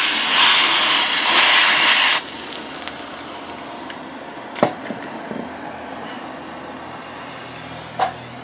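Can of compressed-air duster held upside down, spraying liquid propellant onto a torch-heated brake bleeder to freeze it and break the rust's grip through the temperature difference: a loud, even hiss that stops about two seconds in. A fainter steady hiss follows, with two short sharp knocks, about four and a half and eight seconds in.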